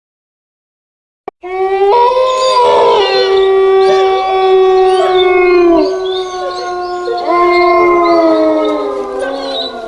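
A ringtone of long, overlapping howls that slide in pitch. It starts after about a second and a half of silence and a single click, and dips briefly in the middle.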